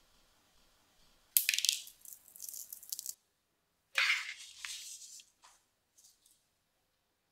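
Pearl sugar sprinkled over a meringue cloud bread: the hard sugar granules patter and rattle onto it and the baking tray for under two seconds. A few seconds in there is a brief sharp scrape and rattle as the baking tray is taken by its edges.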